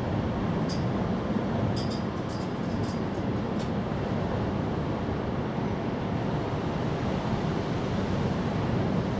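Steady outdoor background noise with a low rumble. A few brief high-pitched ticks come in the first four seconds.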